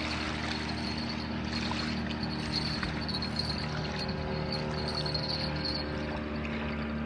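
Small river waves lapping at a sandy shore, a continuous even wash, under a steady low hum.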